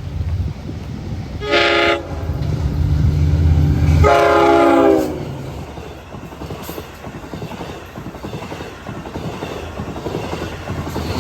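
LIRR diesel passenger train at a grade crossing: its multi-chime horn sounds a short blast about a second and a half in, then a longer one about four seconds in, over the loud running of the locomotive's engine. After that comes the steady rumble of the train passing over the rails.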